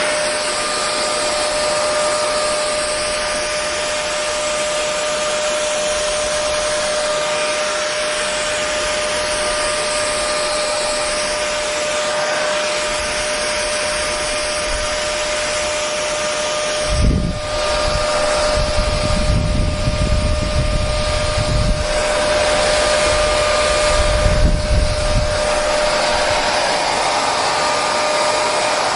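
Hair dryer running continuously: a steady rush of air with a constant motor whine. From about 17 to 25 seconds in, uneven bursts of low rumble come and go over it.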